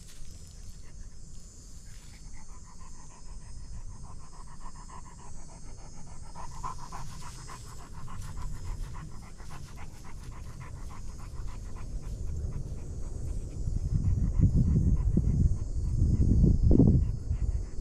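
Dog panting rapidly, an even, quick rhythm of breaths. Louder low rumbling comes in near the end.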